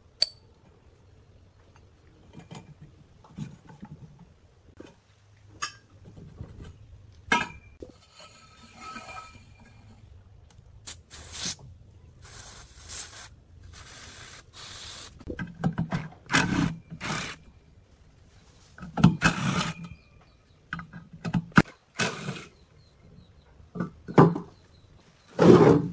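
A few sharp metal clicks, then an aerosol can of penetrating oil hissing in several short sprays onto the rusted joint of a fan's stand pole. From about sixteen seconds in, a run of louder half-second bursts from a cordless drill working the seized pole.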